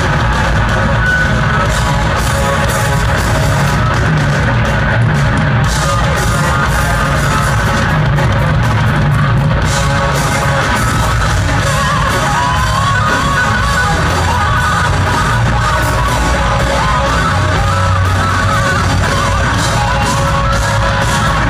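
Live rock band playing loud in a large arena: electric guitars, bass and drums, with the room's echo.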